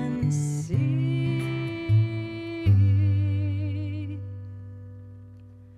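A woman sings the closing notes of a song to her own strummed acoustic guitar, holding the last note with vibrato. The final chord rings on and fades out as the song ends.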